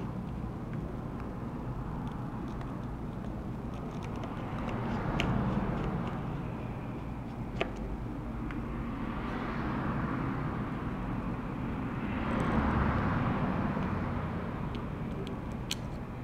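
Traffic noise from passing vehicles, rising and fading three times, with a few sharp small clicks of parts being handled as the phone's internal bracket is fitted back.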